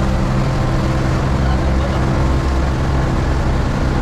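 Outrigger boat's engine running steadily under way, a constant low drone with the wash of water and wind over it.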